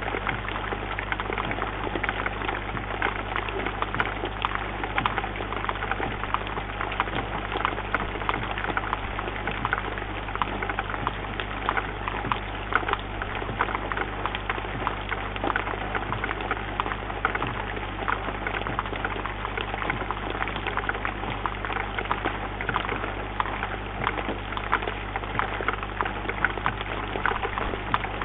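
Steady rain falling on a bird feeder, dense drops ticking close to a microphone inside the feeder, over a constant low electrical hum.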